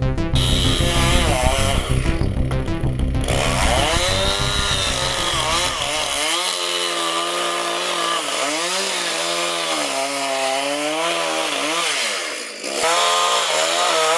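Chainsaw running, its pitch rising and falling as it revs up and down. For about the first six seconds music with a heavy beat plays over it, then the saw is heard alone. It drops briefly near the end, then revs up again.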